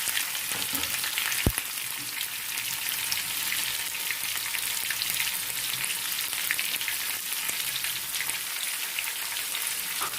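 Sliced onion, cashews and green chillies frying in hot oil in a kadai: a steady sizzle with fine crackling, and a single knock about a second and a half in.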